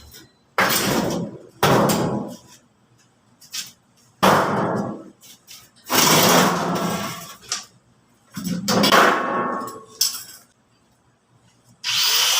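A metalworking tool cutting or grinding in about five separate strokes, each about a second long and dying away. Near the end it settles into a steady continuous run.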